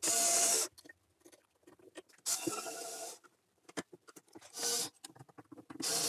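Cordless driver spinning the mounting screws that fasten wired light switches into metal electrical boxes, in four short runs of a steady whine, with clicks and knocks of handling between them.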